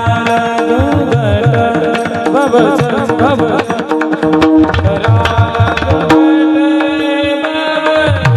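Varkari kirtan chaal music: a held harmonium-like drone, a hand drum beating a steady rhythm, and sharp clicks typical of taal hand cymbals, under a melodic line that bends and wavers with heavy ornamentation.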